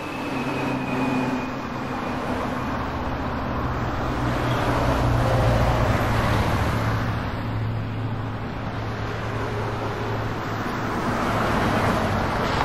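Street traffic: a steady low engine hum from heavy trucks, with passing cars swelling the noise about halfway through.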